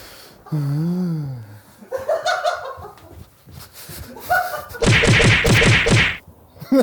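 Men's voices without clear words: a drawn-out wavering vocal sound, then a burst of rapid laughter about five seconds in.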